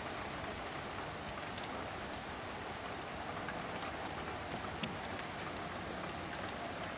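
Steady rain falling, an even hiss with scattered drop ticks on surfaces and one sharper tick about five seconds in.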